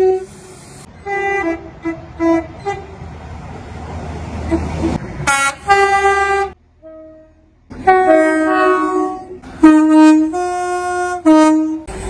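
Train horns sounding a string of blasts, some single-note toots and some multi-note chords, each stopping abruptly. A stretch of running-train rumble comes in the middle.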